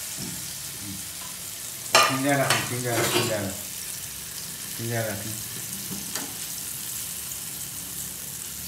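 Paneer cubes sizzling as they shallow-fry in oil in a pan, turned with a slotted spatula; a sharp knock about two seconds in.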